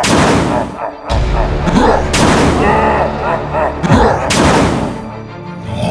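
Cartoon sound effects over music: a loud boom about every two seconds, each followed by a growling, wavering voice-like sound.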